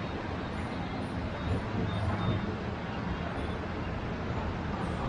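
Ocean surf breaking and washing onto the beach: a steady, low rush of waves.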